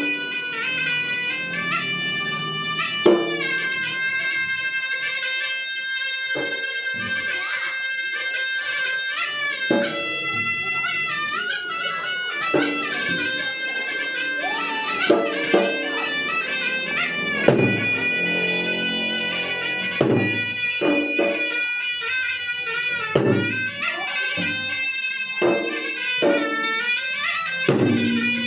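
Traditional Makassar gendang drum music. A shrill double-reed pipe, the pui-pui, plays a continuous, winding, nasal melody, and two-headed gendang drums strike sharply at irregular intervals under it.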